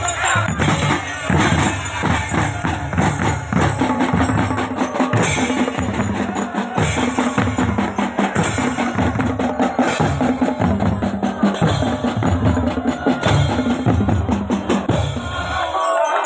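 Music with drums keeping a steady beat.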